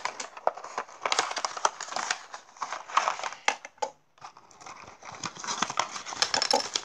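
Hands handling a cardboard toy box and knock-off plastic building bricks on a table: rustling with many small clicks, easing briefly a little past the middle.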